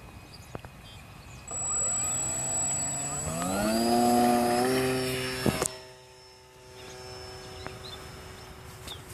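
Radio-controlled model airplane's engine throttling up for takeoff: its pitch rises and then holds high and steady. About two seconds after reaching full pitch it drops sharply in loudness and carries on faint and steady.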